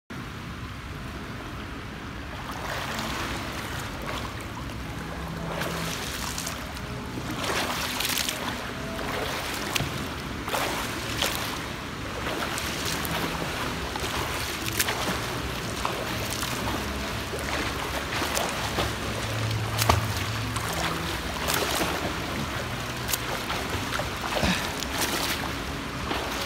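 A swimmer doing front crawl in a pool, each arm stroke slapping into and splashing the water over a steady slosh. Quieter for the first couple of seconds, then splashes about once a second.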